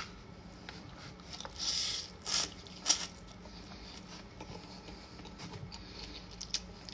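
Mukbang eating sounds: spaghetti being slurped, with a disposable razor used as a fork clicking against the takeout container. Two sharp clicks, about two and a half and three seconds in, are the loudest.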